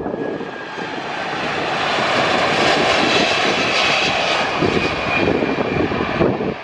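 Boeing VC-25 (Air Force One) jet airliner on landing approach, its four turbofan engines growing louder over the first few seconds as it passes low, with a high whine in the middle.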